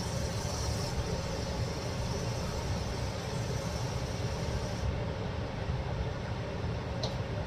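Gas stove burner running under a wok of cola chicken simmering in its sauce, a steady low rumble; the sauce is reducing to thicken.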